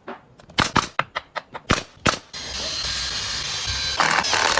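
Several sharp knocks in quick succession, then a steady power-tool noise from about two and a half seconds in.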